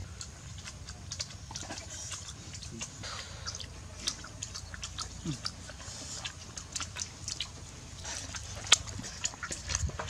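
People chewing boiled eggs with their mouths open: a string of wet smacks and lip clicks over a low steady hum, with one sharper smack near the end.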